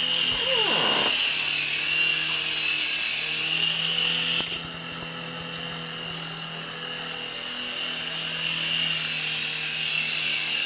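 Toy remote-control helicopter's small electric motors and rotors whining steadily in flight. The whine drops slightly about four and a half seconds in.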